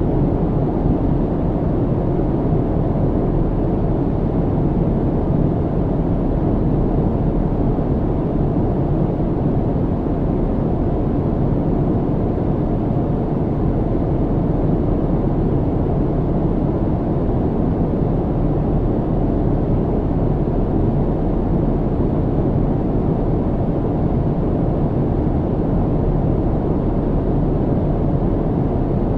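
Steady, unchanging airliner cabin noise: the low, deep rumble of engines and airflow heard from inside an aircraft in flight.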